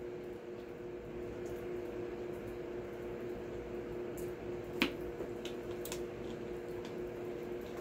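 Drinking from a plastic soda bottle: faint gulps and swallows over a steady hum in the room, with a sharp click about five seconds in as the bottle comes down.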